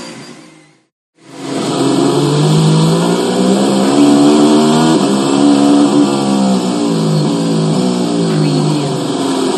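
Formula 1 car engine heard from the cockpit, accelerating hard: its pitch climbs and then drops back several times as the car goes up through the gears. It comes in about a second in, after the previous engine sound fades out to a brief silence.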